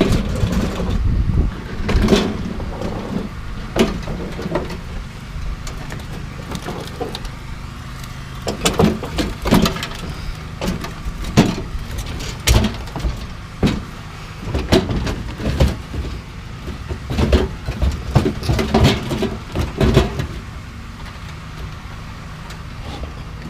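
Metal barbecue grills being handled and loaded, with repeated irregular clanks and knocks of metal on metal. A vehicle engine runs steadily underneath.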